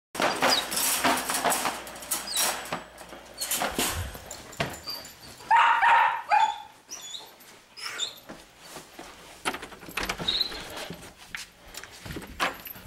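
A young puppy gives a short run of barks about halfway through, amid scattered clicks and knocks.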